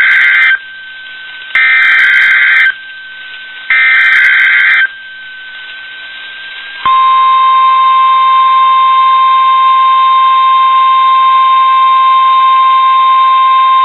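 NOAA Weather Radio SAME digital header: three bursts of data screech of about a second each, a second apart. About seven seconds in, the steady single-pitch 1050 Hz warning alarm tone starts, marking the weekly test of the alert system.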